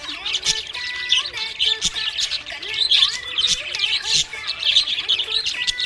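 Budgerigars chirping and chattering: a continuous stream of rapid, high, overlapping chirps and warbles from several birds.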